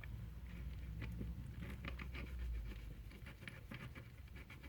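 Faint, irregular small clicks and scratches of a small hand tool working a screw hole in a model locomotive part, with a low hum underneath.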